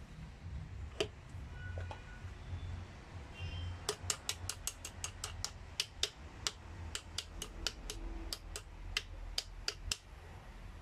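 Ratchet of a band-type piston ring compressor clicking as it is worked around a piston at the cylinder bore: an irregular run of about two dozen sharp clicks, roughly four a second, starting about four seconds in, over a low steady hum.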